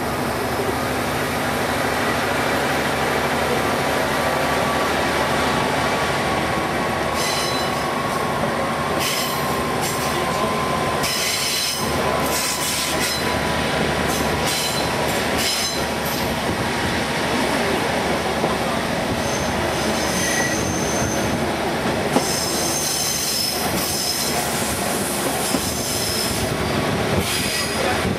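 KiHa 48 diesel railcar pulling away and running along the line, heard through an open window: a continuous rumble of engine, wheels and rushing air, with high-pitched wheel squeals in the middle and later part and a few sharp clicks from the rails.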